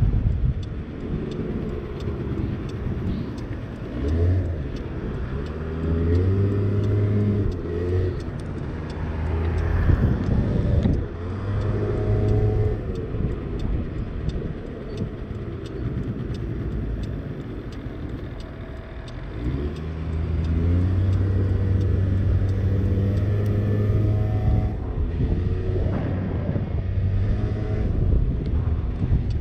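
50cc motorbike engine running on the move, speeding up several times with its pitch rising, and holding steady in between.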